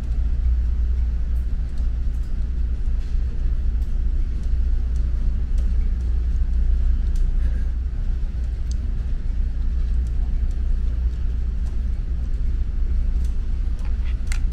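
Steady low rumble of the ferry's engines, heard from inside the ship, with a few faint clicks and a slightly sharper one near the end.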